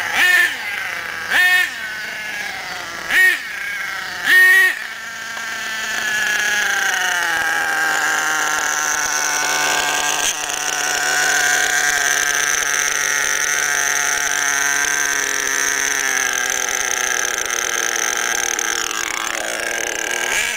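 Nitro two-stroke engine of an HPI Savage X RTR monster truck, an F4.6, being broken in. Four short throttle blips come about a second apart, then the engine runs continuously as the truck drives around, its pitch rising and falling with the throttle.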